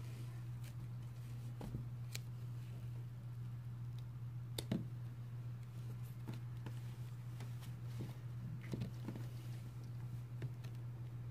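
Scattered small clicks and taps from objects being handled, the sharpest about halfway through, over a steady low hum.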